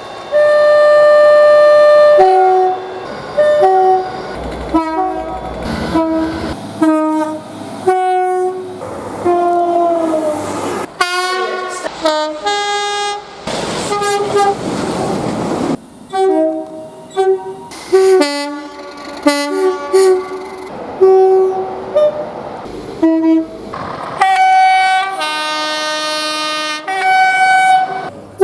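A rapid series of British train horn blasts from different trains, cut one after another every second or two, several of them stepping between two notes. About halfway through there is a stretch of rushing train noise.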